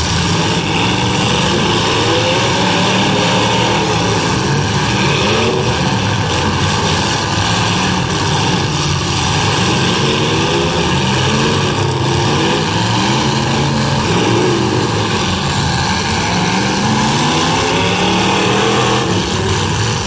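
Several demolition derby cars' engines running hard at once, revving up and down as the cars shove against one another.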